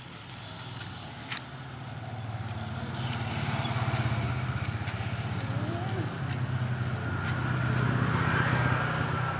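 A motor vehicle engine running close by, its low hum swelling around four seconds in and again near the end, with a steady hiss over it.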